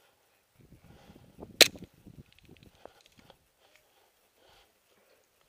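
A single sharp airsoft gun shot snaps about a second and a half in, amid low rustling and thuds of movement.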